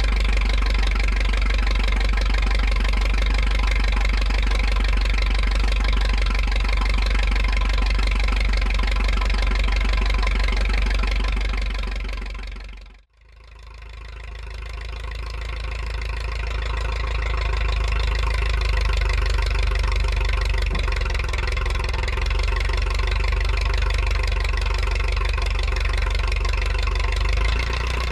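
The spark-ignition engine of a 1974 Case 450 crawler dozer running steadily at idle, freshly tuned with new spark plugs and distributor points. The sound fades out about 13 seconds in and fades back up.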